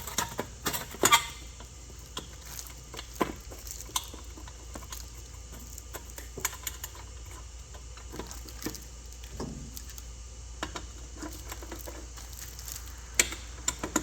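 Scattered metallic clicks, taps and clinks of hand tools and screws being handled while a headlight is seated and screwed into its mount, with a cluster of ringing clinks about a second in and a few more near the end.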